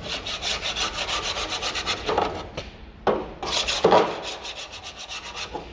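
Fast back-and-forth scraping, about ten strokes a second, like a hand tool worked over a hard surface. It pauses briefly about three seconds in, and there are a couple of louder knocks.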